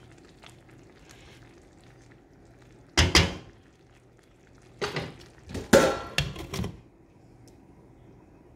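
Cooking utensils clattering against a pan: one clank about three seconds in, then a cluster of clanks between about five and seven seconds.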